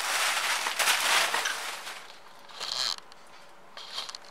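Plastic packaging rustling and crinkling as it is handled, densest for the first two seconds, then softer with two short crinkly bursts later on.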